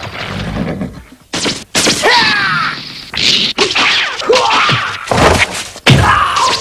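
Arrows striking home with a series of sharp thwacks, and men crying out in pain as they are hit: several yells with falling, wavering pitch between the impacts.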